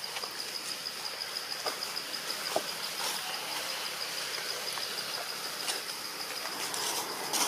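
Insects trilling steadily, a high, rapidly pulsing tone, over a hiss of forest ambience, with a few faint short ticks.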